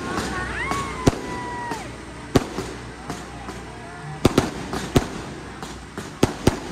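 Aerial fireworks bursting: a string of sharp, irregular bangs, single ones about a second and two and a half seconds in, then a quick cluster of several between about four and six and a half seconds in.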